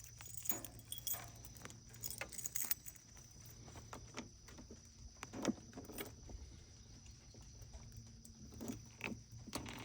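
Faint jingling of keys with small scattered clicks, over a faint steady hum.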